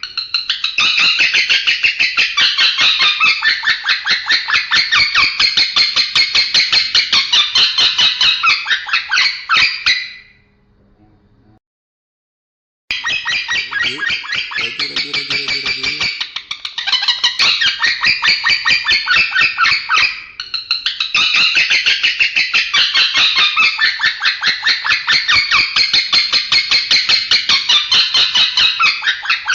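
Male lovebird chattering in long unbroken runs of fast, high, evenly repeated chirps, about five a second, broken once by a short pause about eleven seconds in.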